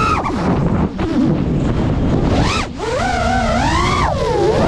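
Five-inch FPV quadcopter's brushless motors whining, the pitch sweeping up and down as the throttle changes, with two short drops as the throttle is cut. Wind rushes over the onboard microphone underneath.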